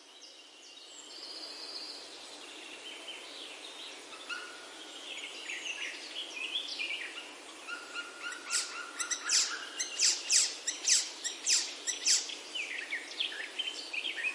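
Birds chirping and whistling over a faint steady outdoor hiss, building about halfway through into a quick run of loud, sharp chirps that eases off near the end.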